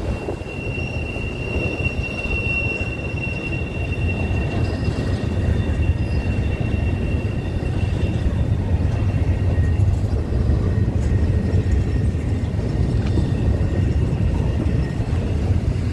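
Train rolling past with a steady low rumble of wheels and cars, and a thin high-pitched wheel squeal that is strongest in the first half and fades after that.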